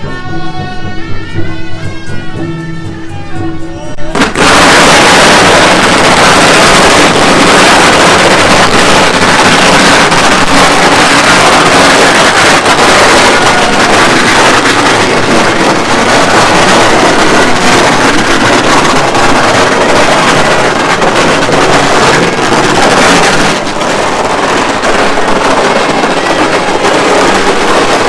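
Shrill procession music that is cut off about four seconds in by a long, very loud, continuous crackle of strings of firecrackers going off.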